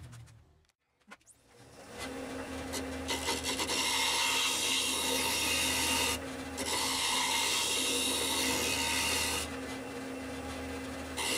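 A wood lathe spinning a bowl while a hand-held metal turning tool scrapes the inside, a steady rasping hiss over the lathe motor's low hum. It starts after a near-silent first second or two, and the cutting stops briefly about six seconds in and for a longer stretch near the end, leaving the motor running.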